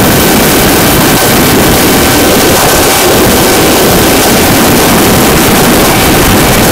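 Loud wind rush over an onboard camera on a VAS Banshee FPV flying wing in fast flight, with the steady whine of its 4S electric motor and propeller underneath.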